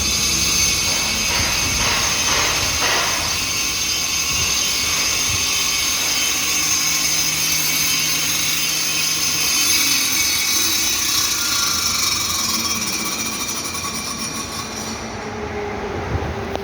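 Stone-cutting machine running with a steady, high-pitched whine; near the end the high whine falls away and it gets a little quieter.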